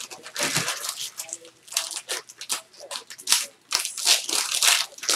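Plastic packaging crinkling and crackling in quick irregular bursts as sports card boxes and packs are handled.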